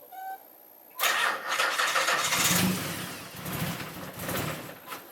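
Nissan 300ZX's V6 engine starting about a second in, then running unevenly, its loudness swelling and dropping: it is misfiring, running even worse than before, from an ignition-system fault.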